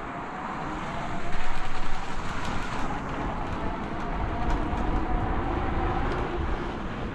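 Himiway Zebra fat-tire electric bike riding over beach sand under throttle: wind buffeting the microphone and the fat tyres rolling on sand, with a faint steady whine from its rear hub motor. The noise swells for a moment about a second in.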